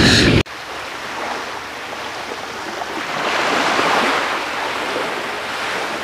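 Sea surf washing among shore rocks: an even rushing noise that swells about three seconds in and eases off again. A louder sound cuts off abruptly about half a second in.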